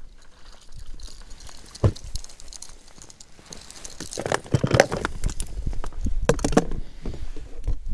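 Knocking, flapping and rustling as a hooked crucian carp is swung into an inflatable boat and taken in hand. A single sharp knock comes about two seconds in, then bursts of quick knocks and flapping around the middle and again near the end.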